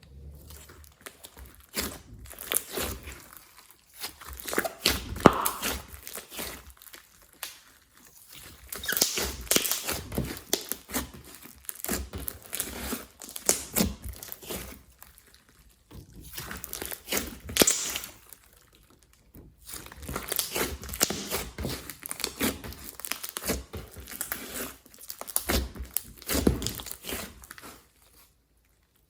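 Slime being kneaded and squished by hand, giving bursts of crackling, popping clicks, with short pauses between them.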